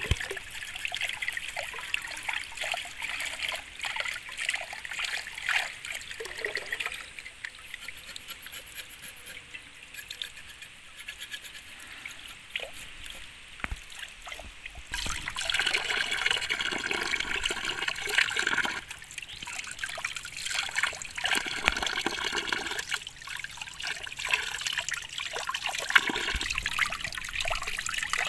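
Water trickling and splashing from a split-bamboo spout, fuller and louder from about halfway through.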